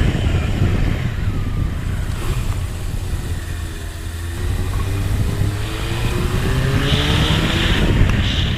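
Suzuki Katana motorcycle engine running under way. The revs fall about two seconds in, then climb steadily and drop off sharply near the end.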